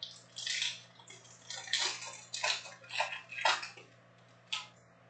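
Foil wrapper of a Panini trading card pack crinkling and tearing as hands open it, in a string of short crinkles, with one sharp crackle near the end.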